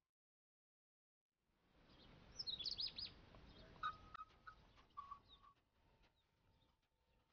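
Faint background bird chirping over a low hiss: a quick run of high chirps about two and a half seconds in, then scattered shorter chirps and a few brief whistled notes. The first second and a half is silent.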